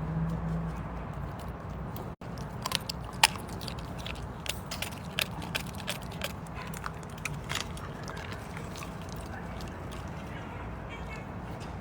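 A large carnivore chewing and crunching meat and bone: a run of irregular sharp cracks and crunches that thin out in the second half.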